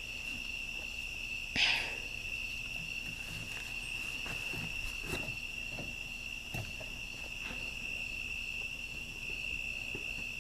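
Night insects trilling in a steady, continuous high chorus. About a second and a half in there is a short rustle of camera handling, and a few faint knocks follow.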